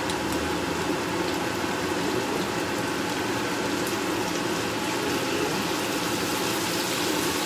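Paksiw of roast chicken simmering in a frying pan: a steady hiss of boiling liquid.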